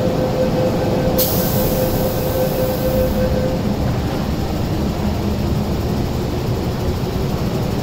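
Hong Kong MTR Kwun Tong Line train standing at an underground platform as its doors and the platform screen doors close, over a steady rumble from the train and station. A steady tone runs until about three seconds in, and a high hiss starts suddenly about a second in and stops at about the same time as the tone.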